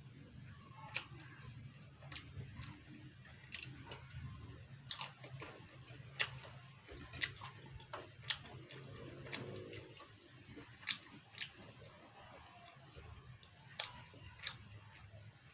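A person chewing and biting mouthfuls of rujak (raw fruit in spicy sauce), close up: irregular crunches and wet mouth clicks, about one or two a second, over a faint low hum.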